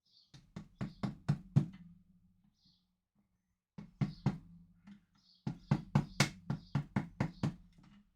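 Rapid hammer strikes in three runs: about six quick blows, a pause, three more, then a longer run of about nine.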